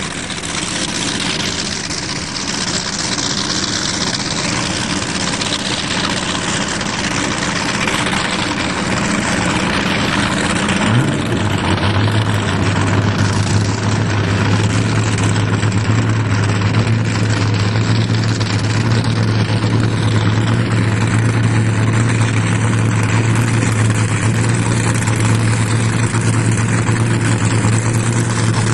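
A motorboat's engine running underway, heard from on board with a heavy rush of wind and water. About eleven seconds in, the engine note climbs briefly and then holds as a steady low drone.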